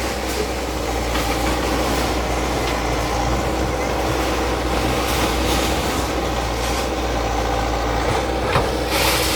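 Diesel engine of a bulldozer running steadily, with a brief knock near the end.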